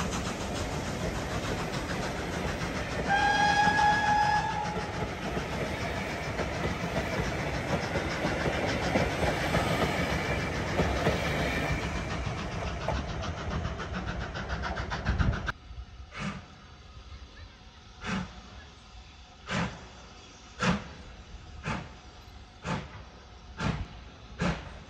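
Steam train working past, with a short steam whistle blast about three seconds in. After a sudden change about fifteen seconds in, slow sharp beats come about once a second, quickening slightly.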